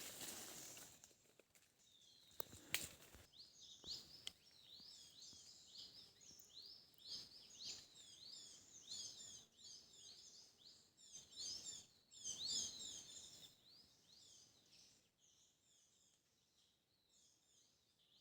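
Faint songbird chirping: rapid runs of short, high, upward-sweeping chirps that thin out after the middle. A single sharp click comes a few seconds in.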